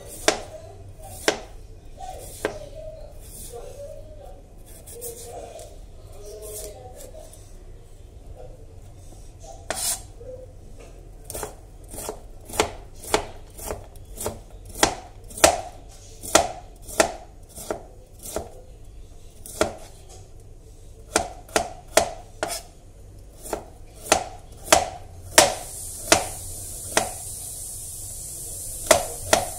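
Knife chopping pumpkin on a cutting board: sharp knocks of the blade striking the board, a few scattered at first, then a steady run of about one to two a second from about a third of the way in. A steady high hiss comes in near the end.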